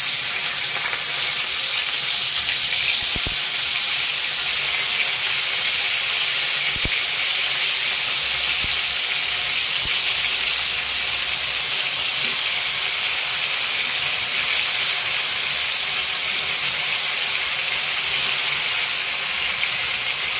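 Marinated chicken pieces sizzling in hot oil in a kadai: a loud, steady hiss that starts and stops suddenly.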